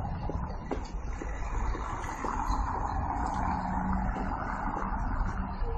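Street ambience: a steady rumble of road traffic, with a low engine hum a little stronger in the middle.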